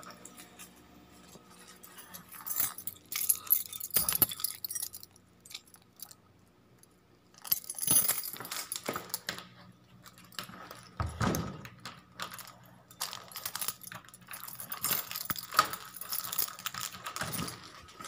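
A bunch of keys jangling and clinking in several irregular bursts, with a quieter stretch in between.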